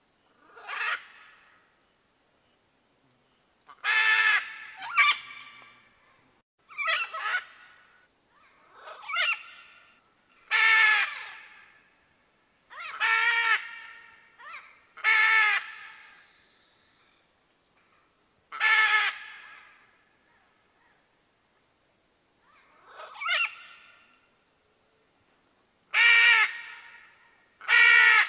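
Red macaw (arara-vermelha) giving loud, harsh squawks, about a dozen of them, each under a second long and coming every one to four seconds, sometimes in quick pairs. A faint steady high-pitched insect drone runs underneath.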